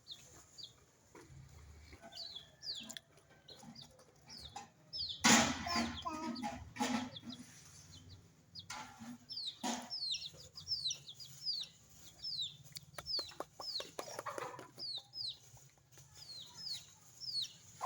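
Chickens clucking while being fed, with many short, high, falling peeps throughout. A louder burst of noise comes about five seconds in.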